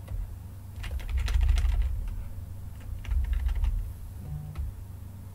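Computer keyboard keys clicking in two quick bursts, one about a second in and another about three seconds in, with dull desk thuds under the keystrokes.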